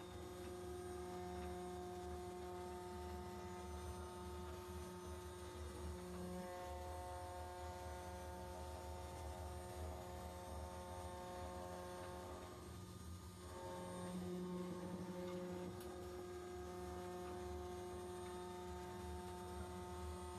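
CNC router spindle running with a 3 mm endmill taking a finishing pass in 304 stainless steel under flood coolant: a steady hum made of several held tones, with a brief dip about two-thirds of the way through.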